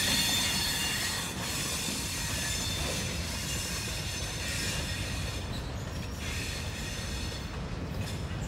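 Empty sugarcane cars rolling by behind a U.S. Sugar diesel locomotive, the wheels squealing in several steady high-pitched tones over a low rumble. The squeal eases a little after about five seconds.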